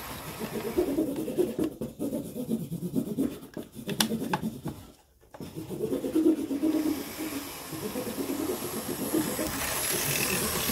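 Electric model steam locomotive running along its track, the motor and wheels rumbling unevenly on the rails. It drops out briefly about five seconds in, just after a couple of sharp clicks, then runs on.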